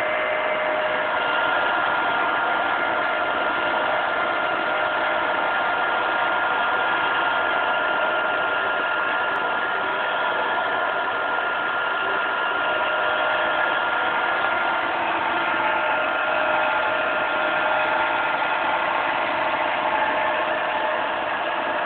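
Machine tool cutting a steering wheel mould: a steady machining whine over a constant hiss, holding two steady tones, one high and one lower, with no pauses.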